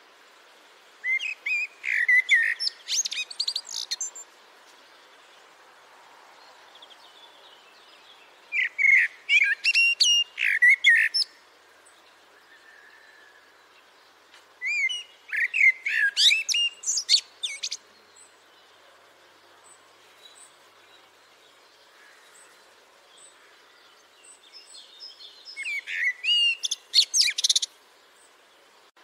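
Common blackbird singing: four separate phrases several seconds apart, each opening with lower fluting whistles and ending in a high, squeaky twitter.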